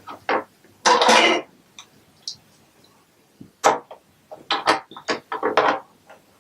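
Plastic Lego Duplo pieces clattering and clicking as they are picked up and pressed together: a short rattle about a second in, then a quick run of sharp clicks in the second half.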